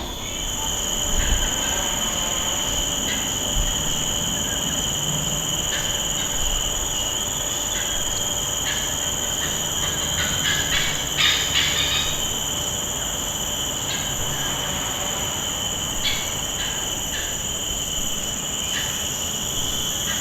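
Chorus of cicadas in a mangrove: a steady, unbroken high shrill made of two pitches at once. Short clicks are scattered through it, thickest near the middle.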